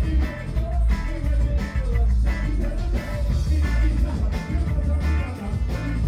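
Live band playing a ska-tinged dub song at full volume: heavy bass and a steady drum beat, with a trombone and MCs chanting into microphones over it.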